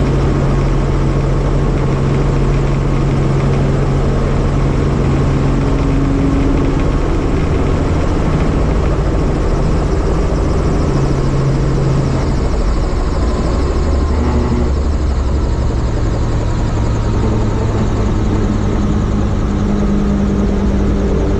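Helicopter in flight: a steady drone of the rotor and turbine, its low tones shifting in pitch about two-thirds of the way through.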